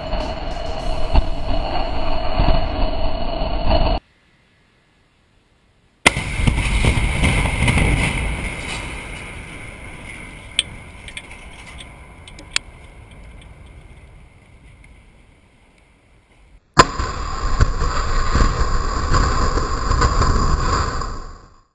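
Explosive demolition of a concrete motorway bridge, heard in three separate takes. Each begins with a sudden sharp blast and goes on as a low rumble of collapsing concrete. The middle take fades away over about ten seconds, with two sharp cracks in it, and a two-second silence comes between the first and second takes.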